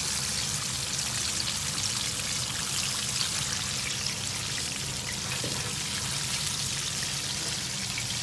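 Battered chicken pieces deep-frying in a frying pan of hot oil: a steady crackling sizzle.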